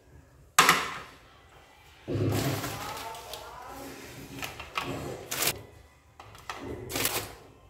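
Tableware being set out on a plastic serving tray: one sharp knock as a plate goes down, then a few softer knocks as dry rusk slices are laid on the plate.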